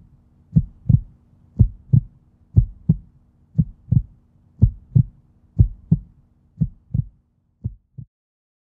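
Heartbeat sound effect: low double thumps, one lub-dub about once a second, over a faint steady hum, growing weaker and stopping near the end.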